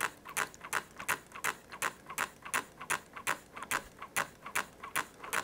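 Hand pump bottle being worked to force water into a model steam locomotive's boiler, its strokes giving a steady run of sharp clicks, about three a second, that stops near the end.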